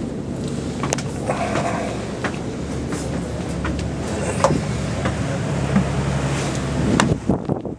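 Camera handling noise: scattered knocks and rubbing as the camera is moved about, over a steady low rumble.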